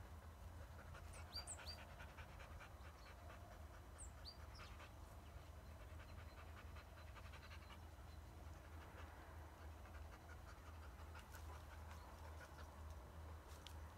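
Kars shepherd dog panting rapidly and faintly, in runs of quick, even breaths, with a few short high chirps over it.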